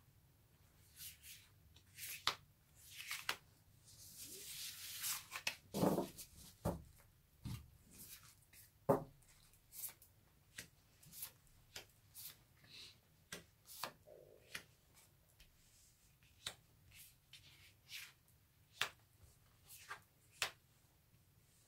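Tarot cards being handled: the fanned deck gathered up and shuffled with a rustling stretch about four to six seconds in, then a string of light snaps and taps as cards are dealt one by one onto the table.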